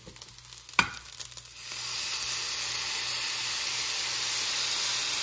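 A sharp click about a second in, then fried rice in a hot frying pan starts to sizzle as dark soy sauce goes onto it, the sizzle rising quickly and holding steady.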